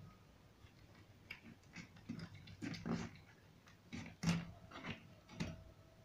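Wallago catfish being cut and cleaned by hand: a run of irregular wet clicks and taps as the pieces are handled, the loudest a little past four seconds in.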